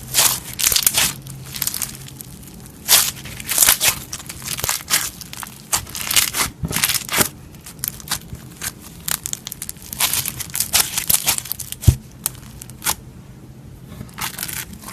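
Slime being squeezed and pressed by hand, making irregular bursts of crackling and popping, with one sharper pop near the end.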